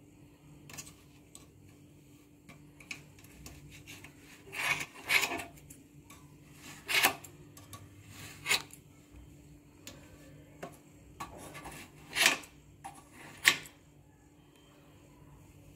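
Hands working yarn wound on a chair leg: a few short rubbing, scraping sounds, the loudest around five seconds in and near the end.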